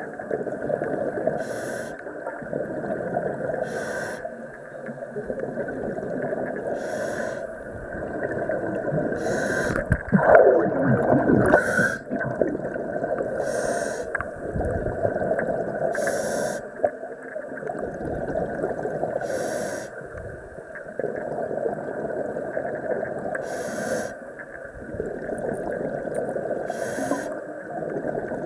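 Scuba regulator breathing underwater: breaths every few seconds, each with a short hiss, over a steady bubbling of exhaled air. About ten seconds in comes a louder gurgling rush of bubbles.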